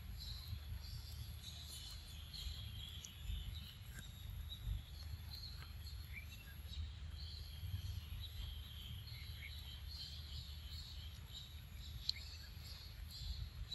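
Forest ambience: a steady chorus of insects chirring in a high band, with scattered short bird chirps, over a low rumble.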